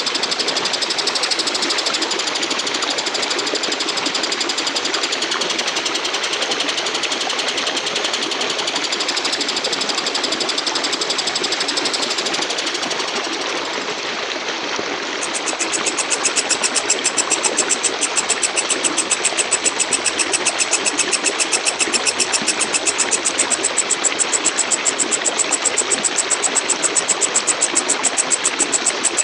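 Walang kecek katydid (bush cricket) singing: a continuous high buzzing trill that changes about halfway through to a fast, even series of sharp chirps.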